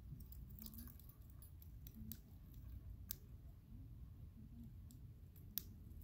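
A budgerigar nibbling at a hanging wooden chew toy: faint, scattered sharp clicks of beak on wood, the loudest one near the end.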